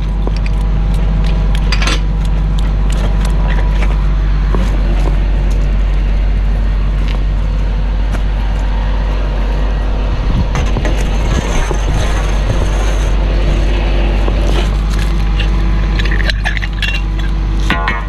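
Pump service truck's engine running steadily, with scattered sharp metallic clinks, a cluster of them near the end.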